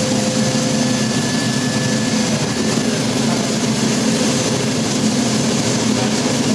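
Automatic rollover car wash machine running, its pumps and nozzles spraying foam and water over a car with a steady hiss and machine hum.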